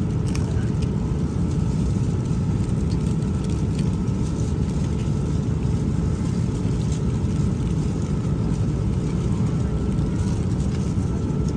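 Steady low roar of an airliner cabin in flight, with a faint constant hum, and a few light crinkles of plastic film being peeled off a meal tray.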